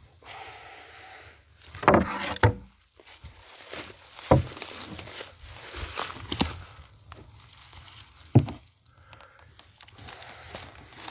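Irregular knocks and bumps on a wooden animal transport crate, a cluster of them about two seconds in, with rustling between.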